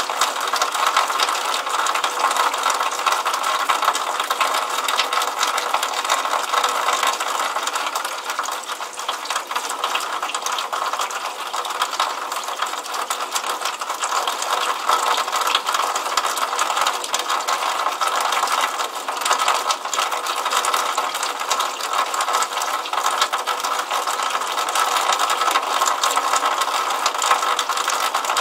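Rainwater running out of a drainpipe and splashing onto wet ground: a steady, dense patter of fine ticks and splashes with no deep rumble.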